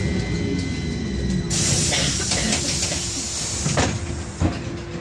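Inside a standing VMZ-5298.01 trolleybus: a steady electrical hum, then a sudden hiss of air about a second and a half in that fades over a couple of seconds, with two knocks near the end.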